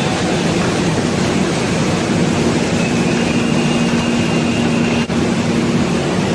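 Steady vehicle noise: a continuous rumble and hiss with a faint steady hum, briefly dipping about five seconds in.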